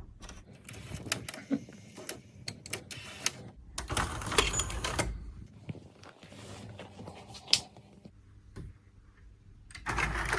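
Irregular small mechanical clicks and clunks, with short stretches of whirring noise about four seconds in and again near the end, from the Pioneer D-05 DAT deck being handled and operated.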